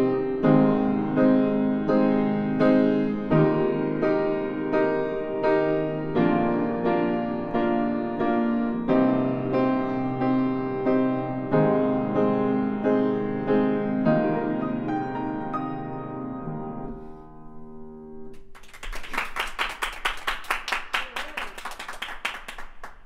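Upright piano playing the instrumental ending of a song: a steady repeated chord pattern, struck about every two-thirds of a second, that slowly fades until the last notes die away about seventeen seconds in. Clapping follows near the end.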